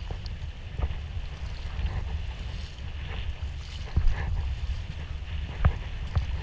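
Kayak paddle blades dipping and splashing in seawater, a stroke every second or so, over a steady low rumble of wind on the microphone.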